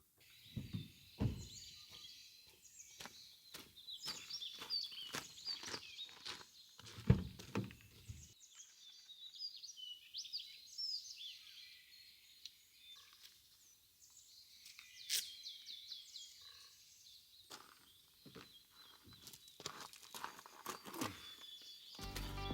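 Small birds chirping, many short calls that glide up and down, with footsteps on a path under them; the steps stop for several seconds in the middle and then resume.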